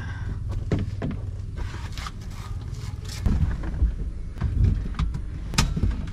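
Scattered knocks, clicks and scrapes of someone handling the seats inside a small car's cabin, with a few louder thuds past the middle, over a low rumble of wind on the microphone.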